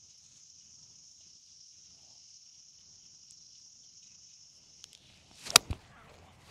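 A 5-iron swinging through with a short swish and striking the golf ball with one sharp crack about five and a half seconds in. Behind it is a steady high-pitched chirring of insects.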